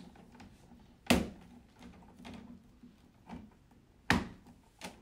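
Plastic parts of a quail grow-out pen knocking and tapping as a white feed grill cover is fitted into its grooves: two sharp knocks, about a second in and about four seconds in, with lighter taps between.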